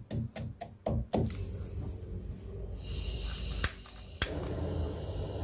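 Wooden pestle pounding seasonings in a clay mortar, about five strikes a second, stopping about a second in. After that a steady low rumble with two sharp clicks at a gas stove burner.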